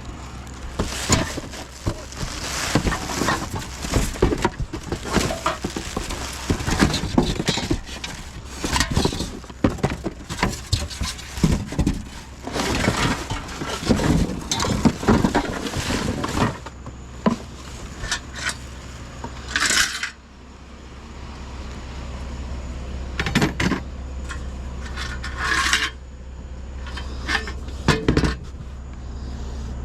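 Scrap metal and junk clanking and clattering as it is handled and tossed, with dense knocks for the first half and a few separate clanks later. A steady low vehicle engine hum runs underneath.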